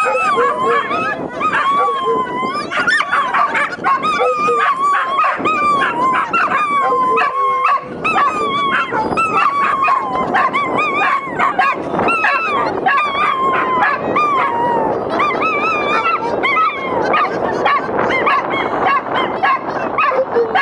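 Several dogs, small terrier-type dogs and a larger tan dog, howling together: many overlapping, wavering howls that rise and fall in pitch and keep on almost without a break.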